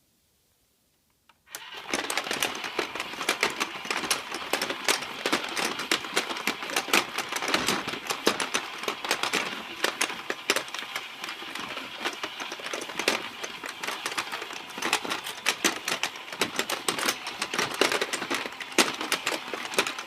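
Battery-powered toy fishing game switching on about a second and a half in, its small motor turning the plastic pond with a steady, rapid clattering of gears.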